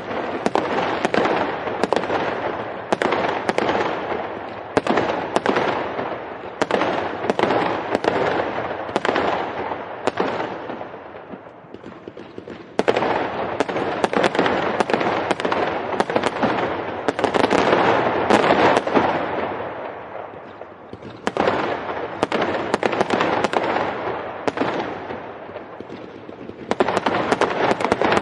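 Fireworks display: a rapid stream of bangs and crackling bursts, coming in waves that briefly thin out twice before the barrage picks up again.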